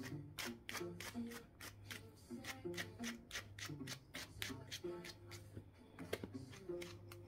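Pet grooming brush raked briskly through a Shih Tzu's long coat, short scratchy strokes at about four a second, over soft background music.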